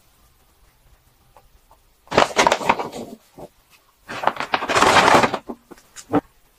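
Paper bag rustling and crinkling as it is handled and folded shut: two loud bursts of crinkling, about two seconds in and about four seconds in, then a few sharp crackles.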